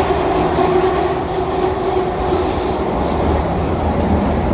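Hong Kong MTR M-Train, a 1979 first-generation Metro-Cammell CM Stock set, running along the line: a steady rumble with a low hum, and a faint tone that fades away over the first couple of seconds.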